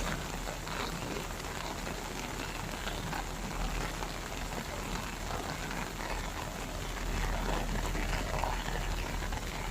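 Heavy rain pouring steadily, a dense even hiss of rain striking the ground and standing water.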